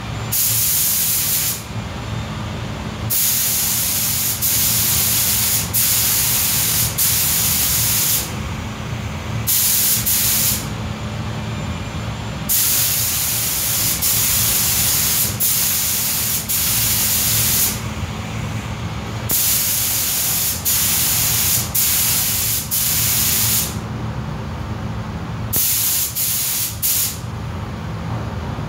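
Pneumatic paint spray gun spraying coats onto car body parts in repeated passes, a hiss of about one to two seconds each with short breaks while the trigger is released. A steady low hum runs underneath.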